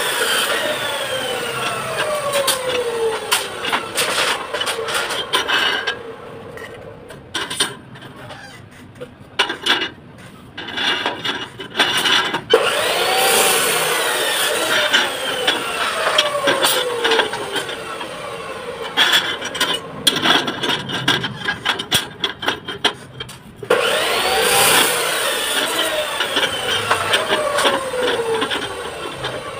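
A power tool's motor spinning up and then winding down in a long falling whine, three times about twelve seconds apart. In between come metal clinks, knocks and rubbing as steel rebar is worked.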